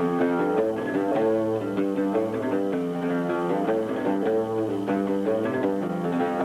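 Instrumental break in a Somali song: backing music with a steady beat and no singing.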